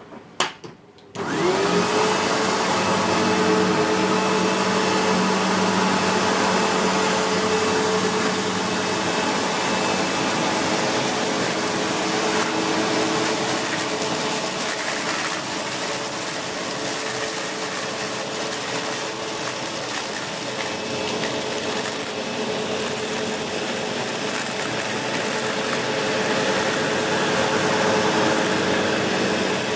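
SEBO X4 Extra bagged upright vacuum cleaner switched on with a click, its motor spinning up with a rising whine about a second in, then running steadily at full suction as it is pushed over carpet.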